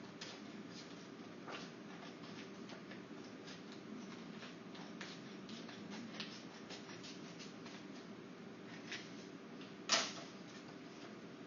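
Scattered light clicks and taps over a steady low room hum, with one sharper, louder knock about ten seconds in.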